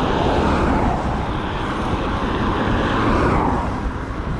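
A motor vehicle passing close on the road: tyre and engine noise swells and fades away after about three and a half seconds, over steady low wind rumble on the microphone.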